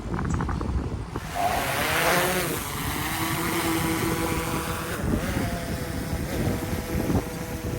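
DJI Mavic 3 drone's propellers spinning up, with a whine that rises and falls about two seconds in and then settles into a steady hum. Strong wind buffets the microphone throughout with a low rumble.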